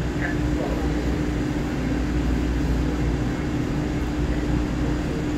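Steady hum and low rumble from a stationary Taiwan Railway EMU3000 electric multiple unit standing at the platform with its doors open. A single constant tone runs through it.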